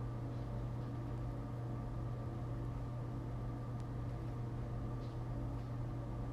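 Steady low hum with a light hiss, the constant background noise of the room, with a couple of faint clicks about four and five seconds in.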